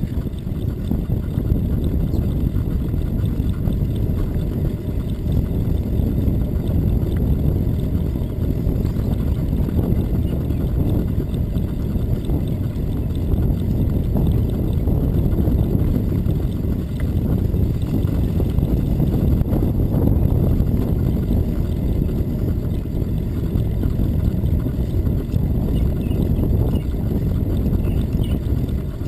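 Steady rumble of wind buffeting the microphone, mixed with tyre and road noise from a bicycle riding along a paved trail.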